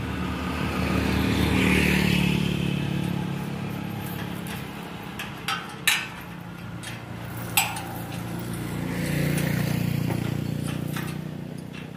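Motorcycles passing on the road, one swelling in and fading about two seconds in and another rising to a peak near the end. A few sharp clanks in the middle, from the aluminium truss sections being handled.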